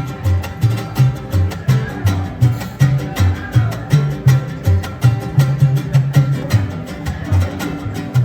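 Music with plucked guitar over a bass line of alternating low notes and a steady beat.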